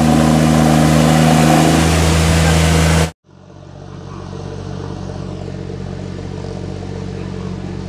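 A loud sound with several steady tones plays for about three seconds and cuts off abruptly. After a brief gap, the VST Shakti MT 932 tractor's diesel engine runs steadily as it works through a flooded paddy field.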